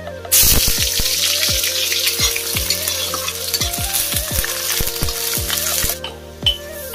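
Sliced onions dropped into hot oil in a wok, bursting into a loud sizzle about a third of a second in and frying while stirred with a spatula. The sizzle falls away about a second before the end.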